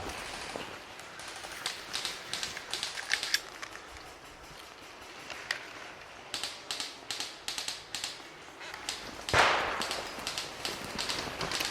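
Airsoft guns firing: irregular bursts of sharp clicks and taps from shots and BB strikes. About nine seconds in comes one louder rushing burst that fades over about a second.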